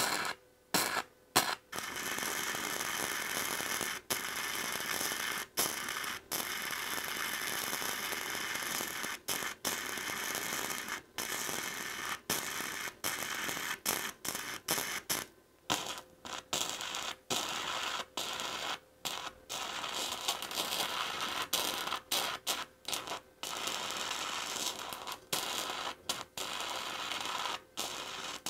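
Wire-feed welder arc crackling and hissing while welding hex bolt heads to a steel plate: a few short strikes at first, then long runs of steady crackle broken by brief gaps, shorter and choppier in the second half.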